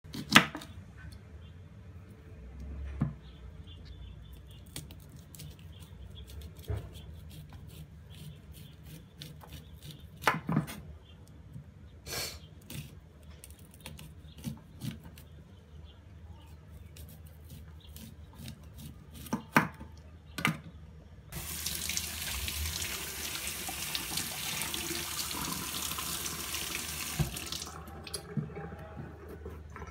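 Kitchen knife cutting corn kernels off a cob on a wooden chopping board, with scattered knocks and scrapes. About two-thirds of the way through, a tap runs into a stainless steel sink for about six seconds as a carrot is rinsed, then stops.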